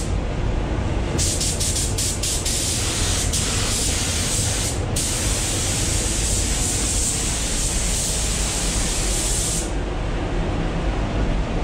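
Gravity-feed compressed-air spray gun hissing as it sprays epoxy primer onto a car hood. About a second in there are several short trigger pulls, then one long continuous pass that stops near the end. A steady low rumble from the paint booth's ventilation runs underneath.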